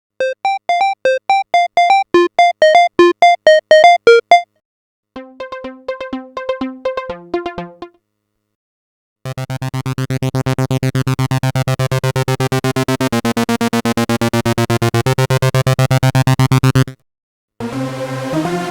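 Synthesizer playing several short parts in turn, each cut off by a brief silence. First comes a quick run of short, bright staccato notes, then a lower staccato figure, then a long, rapid pulsing sequenced pattern whose tone slowly shifts. A fuller chordal passage starts near the end.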